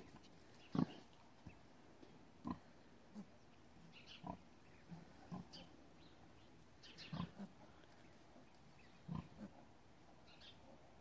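Pigs, a sow and her two-day-old piglets, giving short grunts every second or so, the loudest about a second in.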